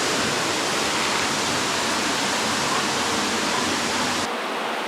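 Steady rushing of a waterfall inside a cave. Near the end the deep rumble in it cuts off suddenly, leaving a thinner rush.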